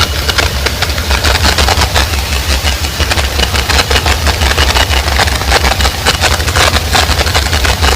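Very loud DJ sound system pounding out a dense, bass-heavy rumble, so loud that the recording overloads and the music turns into a continuous distorted drone with rapid pulsing.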